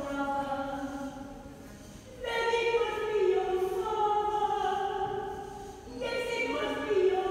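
Choir singing long held notes in phrases of a few seconds, a new phrase beginning about two seconds in and another near six seconds.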